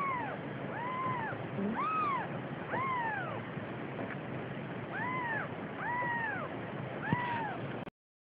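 Young kittens mewing: seven short, high mews, each rising then falling in pitch, about one a second with a pause around four seconds in. The sound cuts off abruptly near the end.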